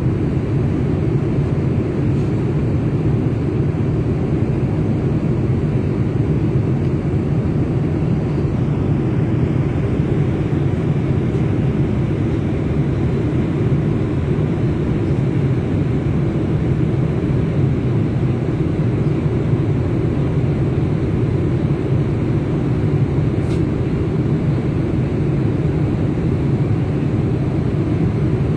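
Steady airliner cabin noise in flight: a continuous low rumble of engines and airflow that does not change.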